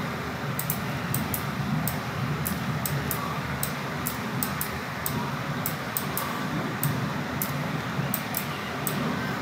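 Computer mouse clicking irregularly, about two sharp clicks a second, as vertices are selected and dragged, over a steady low hum and hiss.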